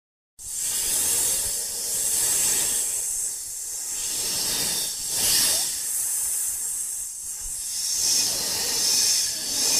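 A hissing noise that starts abruptly and swells and eases several times.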